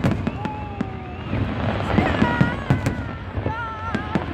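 Festive fireworks salute going off: a run of sharp bangs, with the loudest cluster about halfway through.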